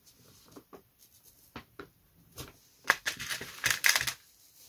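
Light clicks and rustling of hands working with dressmaker's pins and balsa strips on a building board, with a busier cluster of clicks about three seconds in.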